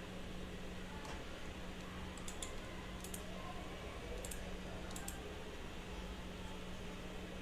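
Faint clicking at a computer: a few short clicks, several in quick pairs, between about two and five seconds in, over a steady low hum and hiss.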